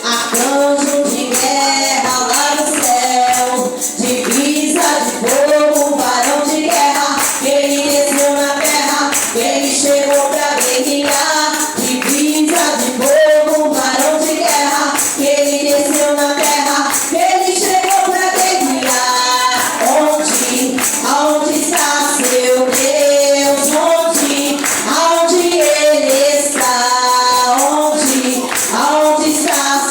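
Worship group and congregation singing a fast Portuguese Pentecostal fire chorus, with a tambourine keeping a steady beat.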